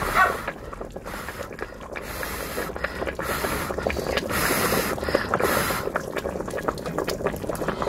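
A person blowing hard, close to the microphone, on a spoonful of steaming-hot kimchi stew to cool it: a series of about five forceful puffs of breath, each under a second.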